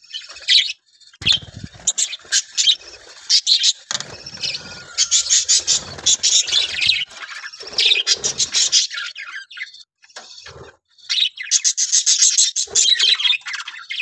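A flock of budgerigars chattering and chirping in a rapid, overlapping warble, dying down briefly a little past two-thirds of the way through before the chatter picks up again.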